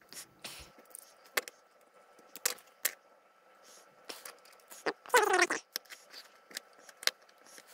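Small sharp clicks and scrapes of a metal spudger prying and poking at a cheap plastic USB flashlight's housing, with a short pitched sound about five seconds in.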